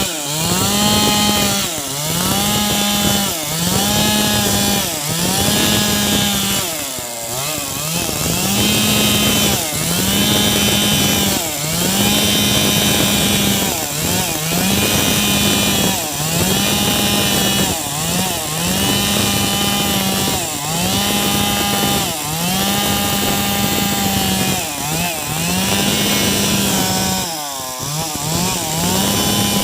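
Chainsaw cutting wood at high revs. The engine note dips and recovers about once a second as the chain bites into the wood, with two longer, deeper dips, near the start and near the end.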